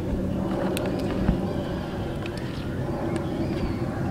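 A silicone spatula stirring chicken legs through thin batter in a steel bowl, giving a few faint wet clicks and taps over a steady low rumble.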